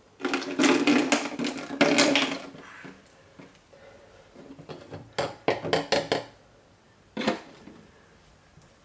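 Chlorine bleach poured into an empty HDPE plastic bottle for about two seconds, with a hollow ringing tone under the splash. A few sharp clicks and knocks follow later.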